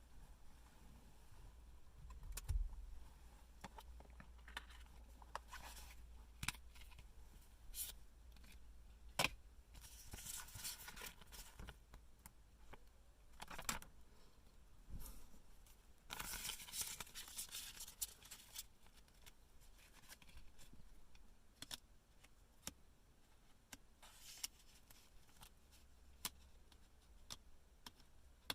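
Hands handling a phone box and its packaging: scattered clicks and taps with short scrapes, and two longer rustling stretches about ten and sixteen seconds in.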